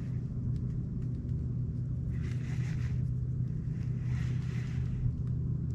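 Small boat motor running steadily with a low, even hum, with two faint hisses over it near the middle.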